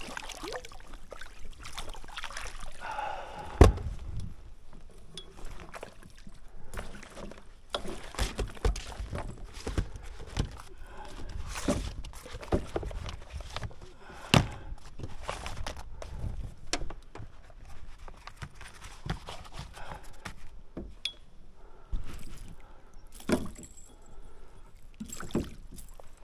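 Water splashing as a golden perch is released over the side of a small boat, then a string of knocks and clunks of gear against the hull and deck, the loudest a sharp knock about four seconds in.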